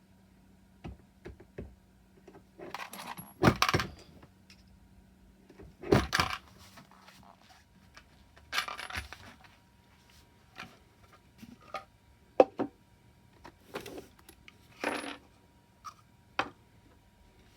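Fired 9mm brass cases clinking and rattling against metal in several short bursts, with single sharp clicks between, as cases are run through a bulge buster die to resize Glock-bulged brass.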